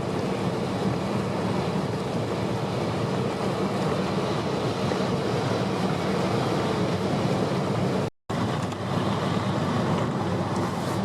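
Steady road and engine noise inside a moving car on a wet road in heavy rain. The sound cuts out for a moment about eight seconds in.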